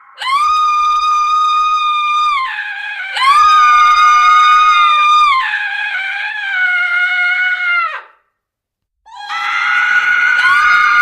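A woman screaming in long, high, held screams: two in a row, then a lower scream that slides down and cuts off. After about a second of silence, another scream begins.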